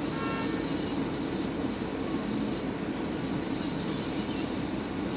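Steady low hum of a stationary car with its engine idling, heard from inside the cabin. A brief high chirp sounds just after the start.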